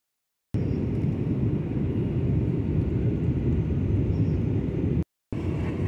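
Airliner cabin noise in flight: a steady low rumble of engines and airflow. It cuts in about half a second in and drops out briefly near the end.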